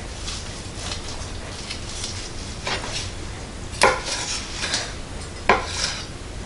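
Knife slicing through a cooked turkey breast roast on a wooden cutting board, held in place with a fork, in soft repeated sawing strokes. The blade knocks sharply against the board twice, about four seconds in and again a second and a half later.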